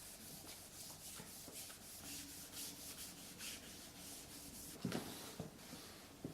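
Microfiber cloth rubbing over a water-dampened laptop screen in soft, quick repeated wiping strokes. Two light knocks come about five seconds in and near the end.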